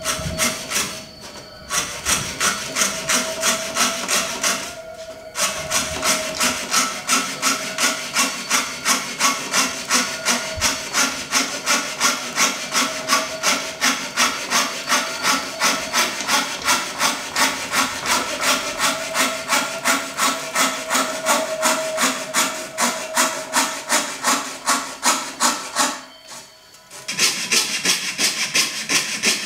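Hand fretsaw cutting through a thin wooden board in quick, even back-and-forth strokes, about three a second, with two short pauses.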